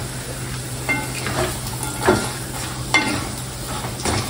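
Browned shallots and other pieces sizzling in a granite-coated wok while a wooden spatula stirs and scrapes them across the pan, with a scrape about once a second.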